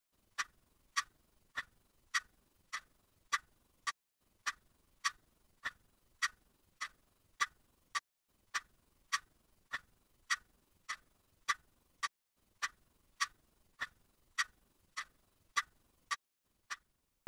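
Steady ticking of a clock, just under two ticks a second, with short breaks about every four seconds.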